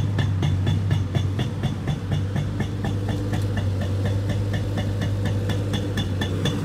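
Pneumatic soil-piercing tool (boring missile) hammering rapidly, about seven blows a second, over the steady running of the engine-driven air compressor that powers it.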